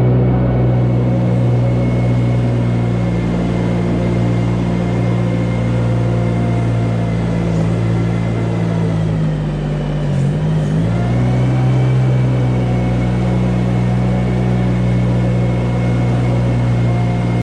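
Engine running steadily under load; its pitch dips briefly about ten seconds in, then comes back up.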